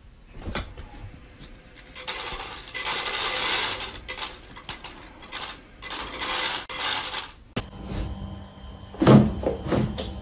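Automatic pet feeder dispensing dry kibble into its tray: two stretches of pellets rattling down, the first about two seconds in, the second about six seconds in. Near the end, over a faint steady hum, a brief loud sound.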